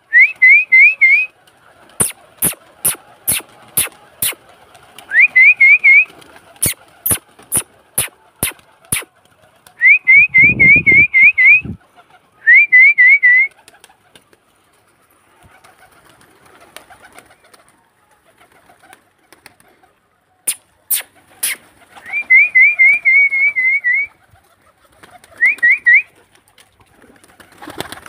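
Whistled calls to bring pigeons down: runs of four to seven quick rising whistles, repeated several times, alternating with runs of sharp clicks at about two a second.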